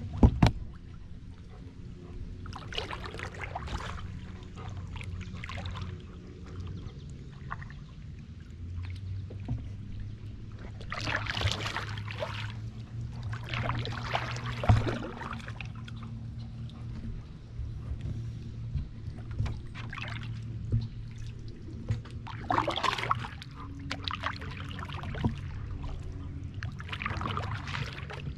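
Canoe paddle strokes heard from a camera on the paddle itself: every few seconds the blade dips and water splashes and pours off it, over a steady low rumble. A single sharp knock comes just at the start.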